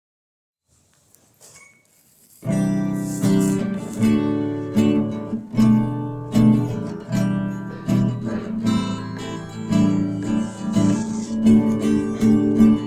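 Acoustic guitar strumming chords in a steady rhythm, starting about two and a half seconds in after a few faint clicks.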